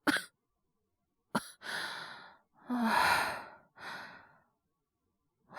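Acted sighs and heavy breathing from a voice actor playing a man sick with a cough and fever: a few breathy exhalations, the longest and loudest about three seconds in.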